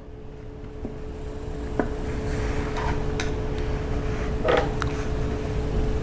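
Shop towel on a screwdriver rubbing and scuffing inside the oily spark plug wells of a 2.4 MultiAir engine, with a few light ticks and a short scrape, over a steady background hum and low rumble that grows louder in the first two seconds.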